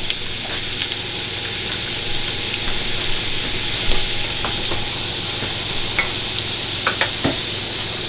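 A carved black walnut wooden spoon stirring a thick syrup of molasses, moonshine and melting candy, with a steady hiss underneath. The spoon gives a few light clicks and knocks against the container, several close together near the end.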